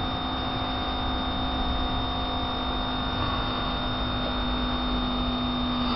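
Electric fuel pump running with a steady hum and a faint high whine. It is holding fuel pressure against simulated boost of about 22 psi.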